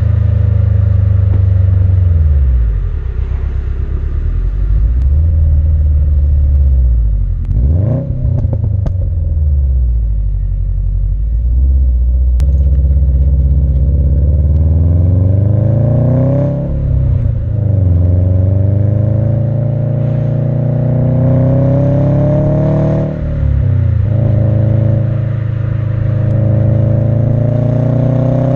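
Subaru WRX STI's turbocharged flat-four through an Invidia Q300 cat-back exhaust, heard at the tailpipes while driving. The engine note climbs in long rising pulls and falls sharply about four times, as at gear changes.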